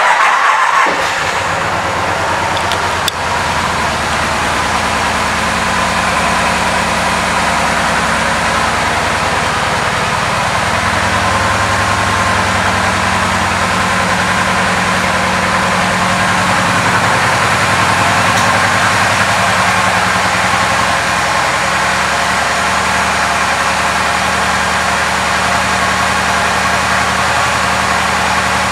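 A 2008 Kawasaki Vulcan 2000 Classic LT's big V-twin fires up and settles into a steady idle.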